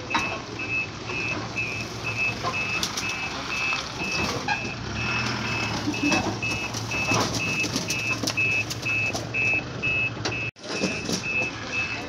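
Electronic reversing-style warning beeps from a toy construction vehicle, short and high-pitched, about three a second without a break. Under them run a low hum and scattered clicks and scrapes of the plastic excavator bucket working sand into the toy truck's bed.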